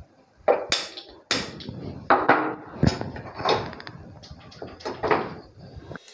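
Irregular knocks and clanks of a metal pan and ladle being handled on a gas stove, about ten sharp strikes with short ringing tails.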